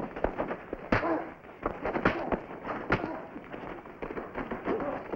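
Fistfight: a series of sharp punch impacts, coming thickest in the first three seconds, with grunts between the blows.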